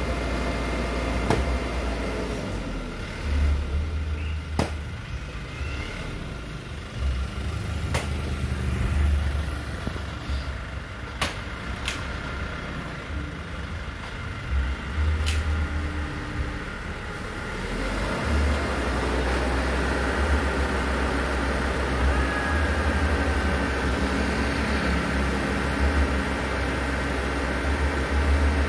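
Crane truck's engine running steadily, with a handful of sharp knocks in the first half. The engine grows louder and busier about eighteen seconds in, as if put under load.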